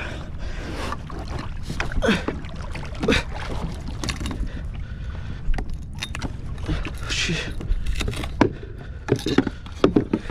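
Irregular knocks, clicks and rattles of gear and hull on a fishing kayak, with water sloshing against the boat, as a freshly landed Spanish mackerel is handled aboard.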